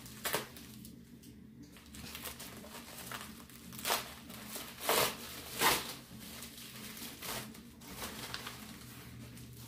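A FedEx envelope and the wrapping inside it being torn open and handled: paper crinkling and rustling in a few short spells, loudest about four to six seconds in.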